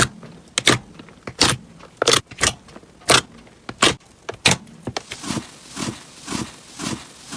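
Slime being squeezed and poked by hand, giving sharp, irregular clicks and pops from trapped air. About five seconds in the sound changes to a steady rhythm of softer squishes, about two a second.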